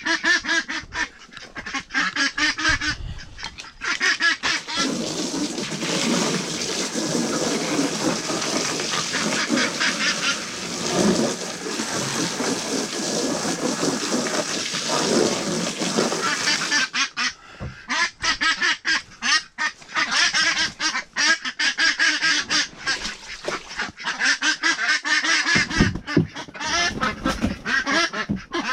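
A flock of farm waterfowl calling together. The calls run in a dense, continuous chorus from about four to seventeen seconds in, with rapid separate calls before and after.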